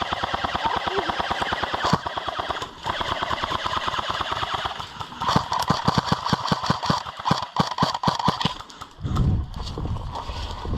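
Airsoft electric gun firing long full-auto bursts: a rapid, even stream of shots over the whine of its gearbox, with short pauses between bursts. A low rumble follows near the end.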